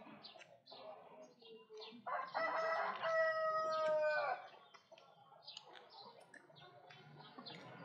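A rooster crowing once: one drawn-out call of about two seconds, starting about two seconds in and dropping in pitch as it ends. Short, faint high chirps and ticks come and go around it.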